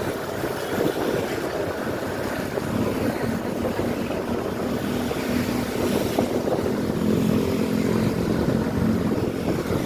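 Tour bus engine running steadily.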